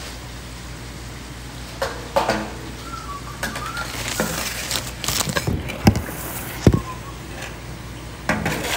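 Steady frying sizzle under a run of sharp clatters and crinkles as a disposable aluminium foil pan and metal tongs are handled on the counter, with a louder clatter near the end.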